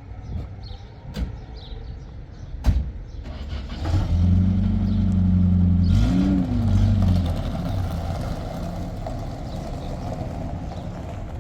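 A few sharp knocks, then a motor vehicle's engine comes in loud about four seconds in, its pitch rising and falling briefly near the middle before it runs on more quietly.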